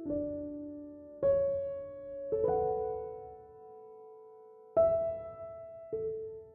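Background music: slow, gentle solo piano, single notes and chords struck about a second or two apart, each left to ring and fade.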